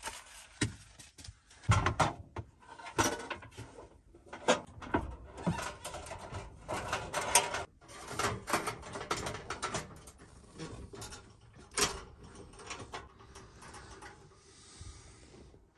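Irregular knocks, clanks and rustling as a two-burner propane camp stove is handled, set out and its metal lid opened in a cramped space.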